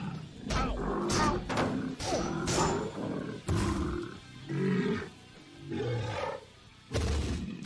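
Background music mixed with animal-like roars and growls and a run of sharp sound-effect hits.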